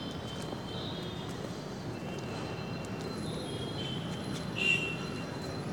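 Steady low background noise, with faint thin high-pitched tones coming and going and a slight swell about three-quarters of the way through.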